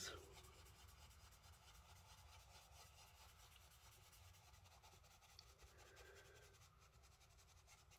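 Faint rubbing of an ink blending tool worked over paper, applying green ink.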